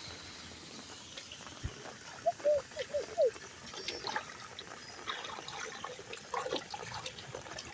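Rainwater running and trickling into a street drain. About two seconds in come four short, loud chirps in quick succession.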